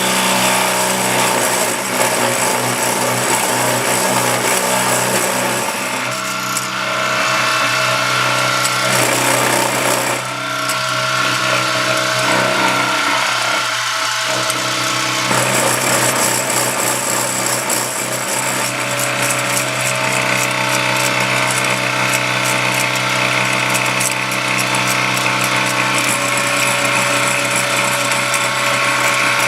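Milling machine running, its cutter milling down a metal model-locomotive frame weight: a steady motor hum and whine under a loud, rough cutting noise. The cutting noise eases off twice as the cut changes, then comes back.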